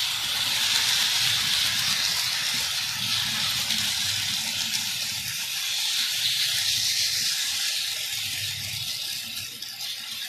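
H0-scale model freight train rolling past close by: a steady hissing rattle of wheels on the rails over a low rumble, swelling twice as the cars go by.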